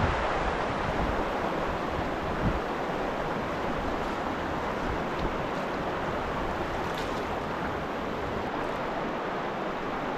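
Steady rush of a fast-flowing, choppy river current.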